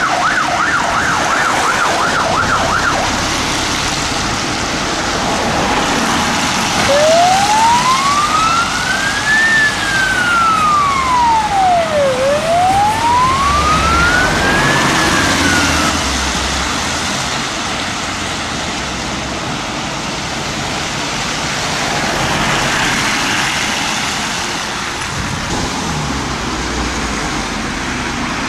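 Siren on a Volvo hydraulic platform fire appliance. A fast yelp stops about three seconds in; after a pause come two slow wail cycles, each rising and falling, which fade out just past halfway. Steady road and engine noise runs underneath.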